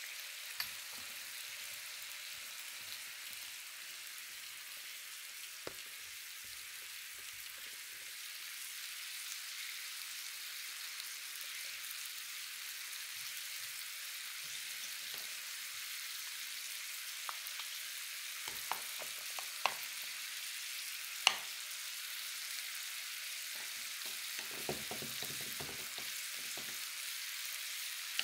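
Sliced beef and garlic frying on a flat griddle, a steady high sizzle. A few sharp clicks come past the middle, the loudest a little after two-thirds of the way through, followed by a patch of soft low knocks near the end.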